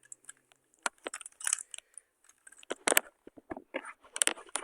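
Plastic toy car being handled: irregular clicks and rattling clatters of small hard parts, in clusters about a second in, about three seconds in, and again near the end.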